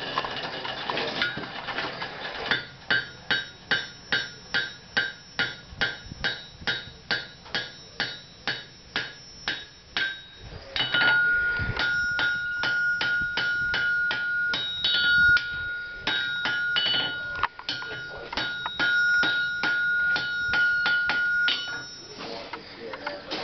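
Blacksmith's hammer striking a log hook on an anvil, a steady rhythm of about two blows a second, each blow ringing. About halfway through, the blows come quicker and a clear high ring holds between them; the hammering stops near the end.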